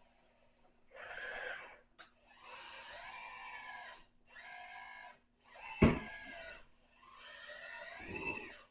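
Paladin 961 RC excavator's hydraulic pump whining in five short bursts of a second or so as the controls are worked, each burst bending up and down in pitch. A single sharp knock about two-thirds of the way through is the loudest moment.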